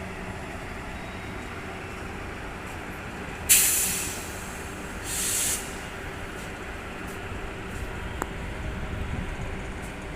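Two short hisses of compressed air from a train's air brakes: the first, about three and a half seconds in, starts suddenly and fades over about half a second; the second, about a second later, is quieter and cuts off. A steady low rumble with a faint hum runs underneath.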